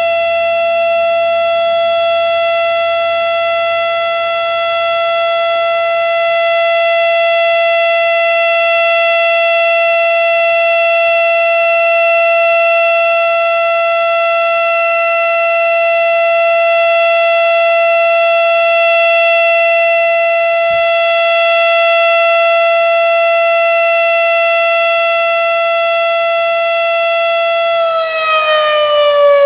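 Darley STH-10 mechanical tornado siren sounding the steady Alert signal, a loud single held tone with strong overtones. About 28 seconds in, the pitch starts to fall as the siren winds down at the end of the sounding.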